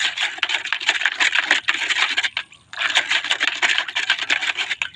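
A plastic scoop stirring a milky liquid in a plastic basin, rubbing and scraping against the basin in quick strokes, with a short break about halfway through. The mix of rice water, milk and MSG is being stirred to dissolve.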